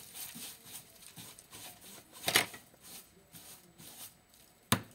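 Small handling noises, scattered rustles and light knocks, with a short louder noisy burst about halfway through and a sharp click near the end.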